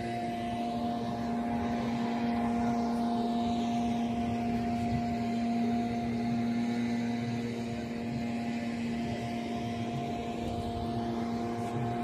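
A steady mechanical drone: several fixed tones held over a low rumble, with a slow swirling quality in the upper range.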